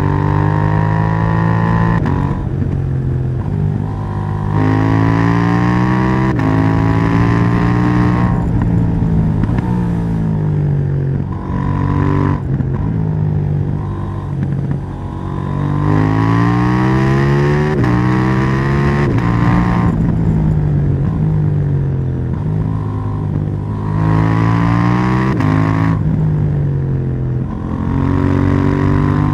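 KTM 790 Duke's parallel-twin engine under riding load, repeatedly revving up through the gears: the pitch climbs, drops sharply at each shift, and sinks slowly as the throttle is rolled off between runs.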